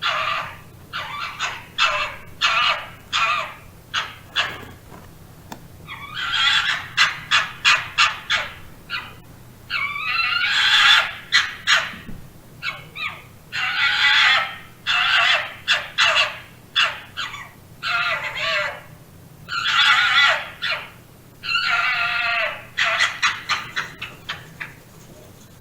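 Fox calling in quick runs of short, high yelps, several runs in a row with brief pauses between them, and a few longer drawn-out calls among them.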